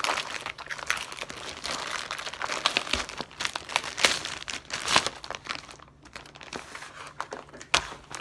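Clear plastic bags crinkling and crackling as they are handled and opened, in quick irregular crackles with a short lull about six seconds in.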